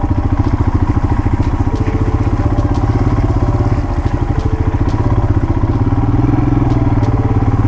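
Motorcycle engine running steadily at low speed, its firing pulses even, as the bike picks its way along a muddy, rutted road.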